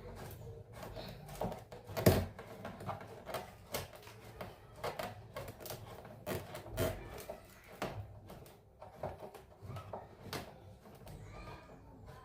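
Irregular knocks, clicks and scraping from a loudspeaker cabinet being handled and taken apart, with one louder knock about two seconds in.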